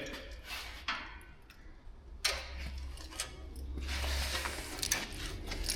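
Irregular metallic clicks and knocks, with a few seconds of scraping in the middle, from hand tools fitting a wheel hub and its retaining circlip into a rear trailing arm.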